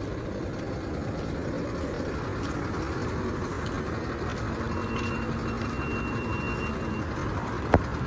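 Road traffic running in a steady low rumble of engines, with a single sharp knock near the end.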